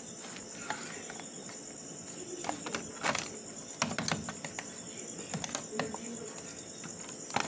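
Knife and wooden spoon scraping and tapping against a disposable aluminium foil pan while cutting and lifting out pieces of cake: a handful of short scattered clicks and scrapes, over a steady high-pitched background whine.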